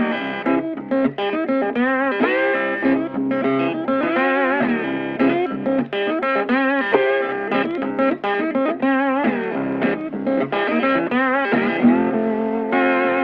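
Electric guitar music with bent, vibrato lead notes over a steady backing.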